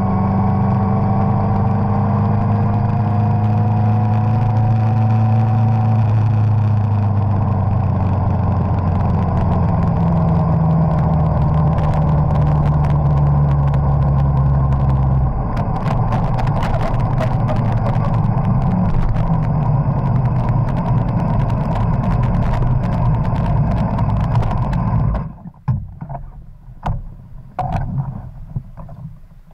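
Suzuki GSX-R1000 inline-four engine running on the move, its pitch falling gently over the first few seconds and its note dropping again about halfway through as the bike slows, with road and wind noise. About 25 seconds in the engine sound cuts off abruptly, leaving a few scattered clicks and knocks.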